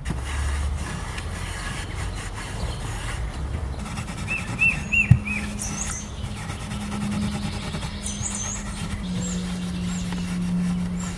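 A steady low hum that starts about four seconds in and drops a little in pitch around nine seconds. Birds chirp a few quick notes about four seconds in and again near the end, and there is one sharp knock about five seconds in.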